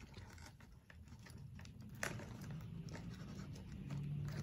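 Picking and scratching at stubborn sticky tape on a cardboard box: a run of faint scratches and small clicks, with a sharper click about two seconds in.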